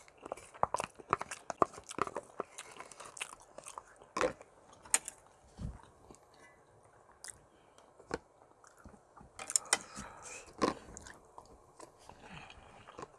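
Close-up eating sounds of tuna kimchi stew: chewing and wet mouth noises with many short sharp clicks, thinning out to a quieter stretch in the middle before a burst of them again near the end.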